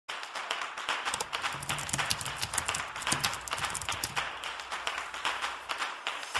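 Computer keyboard typing: a quick, irregular run of key clicks.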